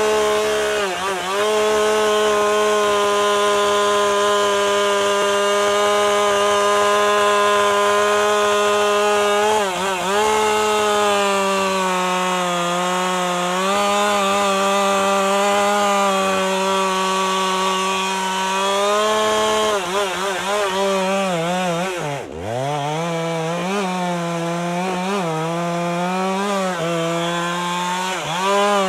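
Husqvarna chainsaw running at high revs while cutting through a storm-downed oak trunk. The engine pitch sags several times as the bar loads up in the cut and wavers in the second half. It drops sharply about two-thirds of the way through, then climbs back to full revs.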